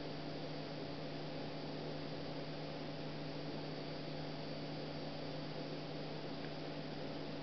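Steady background hiss with a low electrical hum underneath: room tone and recording noise, with no distinct events.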